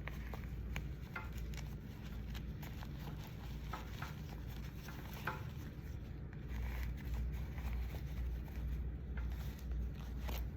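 Faint small clicks and rustles of hands handling a toy doll and its tiny hat, spaced irregularly, over a low steady background hum.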